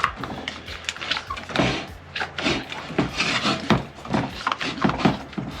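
Rubber rim gasket being pulled loose by hand from a KTM spoked tubeless motorcycle rim: irregular rubbing and scraping of rubber dragging on the metal rim.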